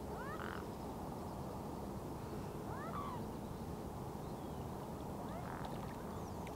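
Steady hum of distant road traffic, with three short calls from a bird rising and falling in pitch, about half a second, three seconds and five and a half seconds in.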